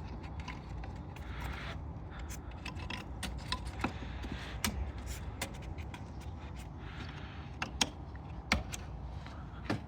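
Scattered light clicks, taps and scrapes of parts being handled and fitted under a car's hood, two of them sharper near the end, over a steady low rumble.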